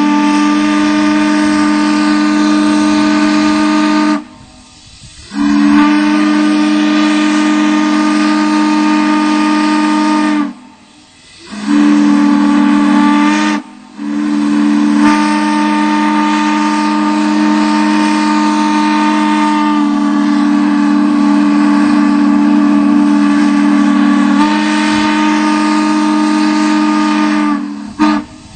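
Railroad chime steam whistle blowing a steady multi-tone chord with steam hiss. It sounds in long blasts broken by short pauses near 4, 10 and 13 seconds in, and the last blast is held for about fourteen seconds before cutting off just before the end.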